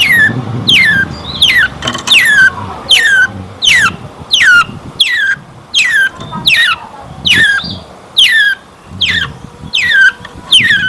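Long-tailed shrike (cendet) calling loudly in a rapid series of sharp notes, each dropping steeply in pitch, about one and a half per second.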